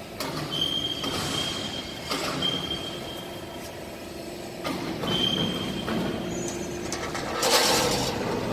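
Hydraulic guillotine shear working: a steady pump hum, three short high squeals, a couple of clunks, and a louder rush of metallic noise about seven and a half seconds in.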